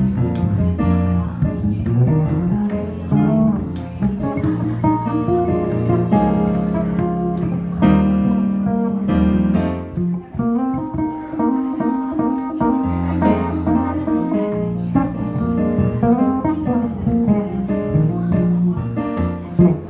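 Jazz played on piano together with a plucked string instrument: a busy melody over a walking low line.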